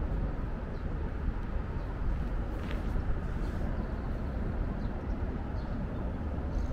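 Wind on the microphone at an open waterfront: a steady low rumble that rises and falls unevenly. A faint brief high chirp sounds a little under three seconds in.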